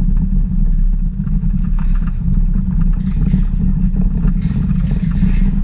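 Steady low rumble of a moving vehicle, with faint clatter now and then.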